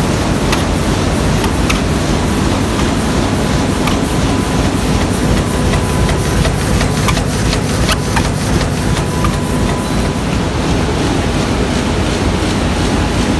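Bobst DRO 1628 NT rotary die-cutter running while it feeds corrugated board: a loud steady machine noise with a quick, regular clicking.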